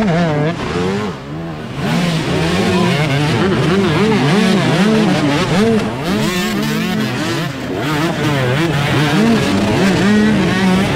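Several dirt bike engines revving, the pitch rising and falling again and again as the throttles are blipped on and off. The bikes are picking their way through a rocky section of the racecourse.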